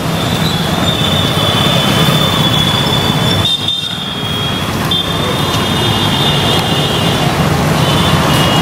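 Street traffic noise from passing motorcycles and cars on a wet road, with a steady high-pitched whine over it that breaks off briefly about three and a half seconds in.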